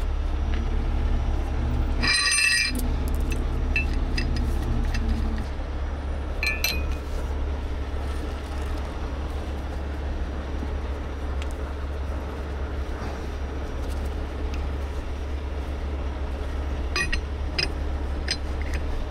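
Steel rigging shackle and strap hardware clinking against metal: one sharp ringing clank about two seconds in, a shorter clink near six seconds, and a few light clicks near the end as the shackle pin is threaded. A steady low engine hum, typical of a heavy tow truck idling, runs underneath.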